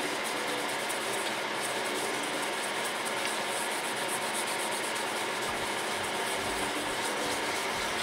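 Steady whir of rack server cooling fans, with faint rubbing of a paper tissue wiping old thermal paste off a CPU heat sink.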